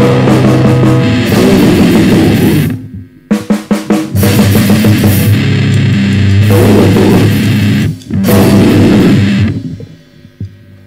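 Noisecore band playing at full volume: a dense wall of distorted instruments over pounding drums. About three seconds in it stops dead, a few drum hits sound alone, and the whole band crashes back in. Near the end the music cuts off, leaving a low electrical hum.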